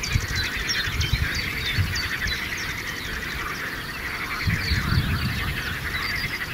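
Many birds singing and calling at once: short whistled notes over a dense, continuous chatter, with gusts of wind rumbling on the microphone.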